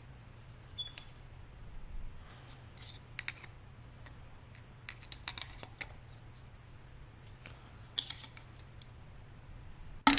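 Small clicks and scrapes of a tool prying at a motorcycle fork's oil seal, at irregular intervals, with a louder sharp click near the end as the seal comes free.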